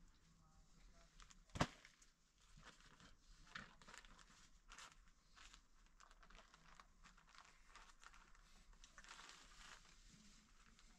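Faint crinkling and rustling of a plastic sheet being handled, with scattered small clicks and one sharp click about one and a half seconds in.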